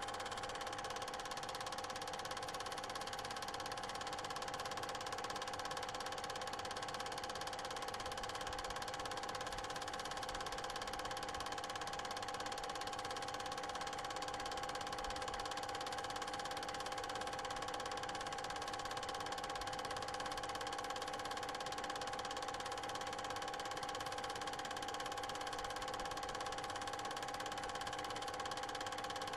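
An 8mm cine projector running, giving a steady mechanical whirr with several fixed hum tones.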